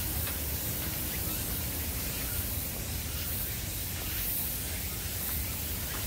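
Forest ambience on a walk: a steady hiss with a low rumble of wind on the microphone, and a few faint bird chirps, one near the start and one about two-thirds of the way through.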